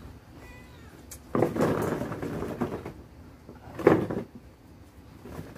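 Plastic monobloc chairs scraping and knocking on concrete as a person shifts his weight onto them to drop into a split: one long scrape from about a second in, then single sharp knocks near the middle and at the end.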